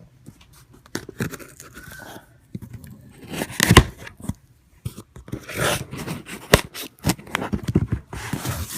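Packing tape being cut and torn off a large cardboard shipping box, in irregular rasping strips with sharp knocks and scrapes from the box, the loudest about four seconds in.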